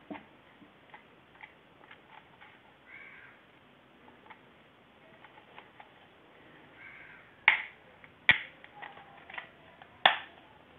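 Plastic casing of a hair dryer's handle being pried apart by hand: light clicks and ticks, then three sharp plastic snaps in the second half as the halves come loose.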